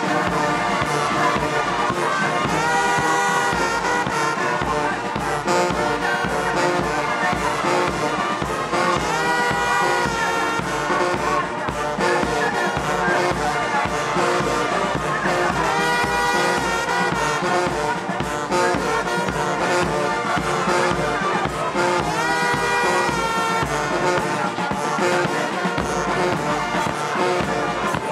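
Brass band playing march music with a steady beat, the same phrase coming round every six or seven seconds.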